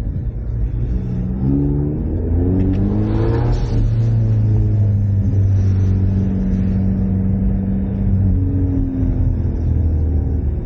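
Ford Mustang EcoBoost's turbocharged four-cylinder engine accelerating away, its pitch climbing in steps through a couple of gear changes, then holding a steady drone before rising briefly again near the end.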